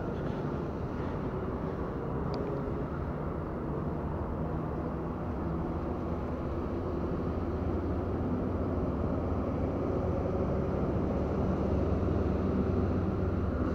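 Steady low outdoor rumble with a faint hum, slowly growing a little louder over the second half.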